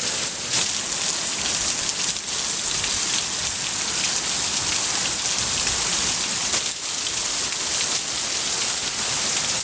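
Heavy hurricane rain pouring steadily, with water running off a roof, and a few brief louder spatters along the way.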